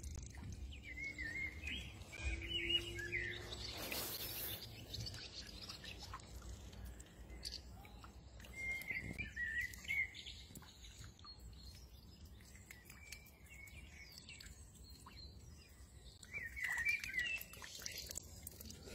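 Ducklings peeping: clusters of high, wavering cheeps near the start, again around nine seconds in, and near the end. A brief rushing noise about four seconds in.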